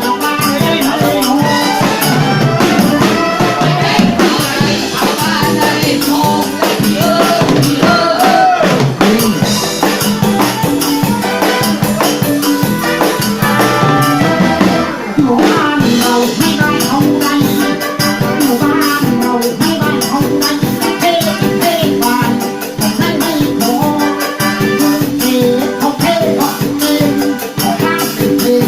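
A live band playing southern Thai songs, with busy rattle or shaker percussion and drums under a gliding melody line, likely the lead singer's voice.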